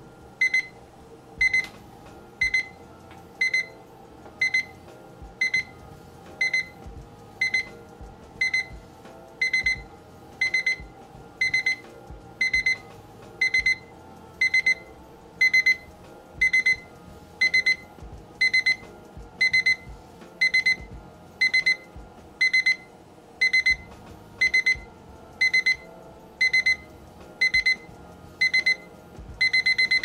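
Wisefield digital kitchen timer alarm beeping once the countdown has run out: a quick burst of high-pitched beeps about once a second, repeating steadily.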